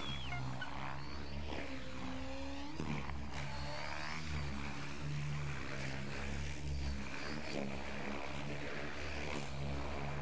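Electric Thunder Tiger Raptor E700 RC helicopter flying 3D freestyle manoeuvres. Its rotor drones steadily, with whining tones that rise and fall as the pilot changes pitch and direction.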